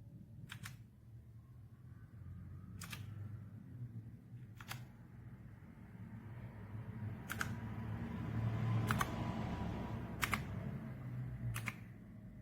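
Single keys of an AULA F2088 mechanical keyboard with blue switches pressed one at a time, seven sharp clicks about a second and a half apart, over a low rumble.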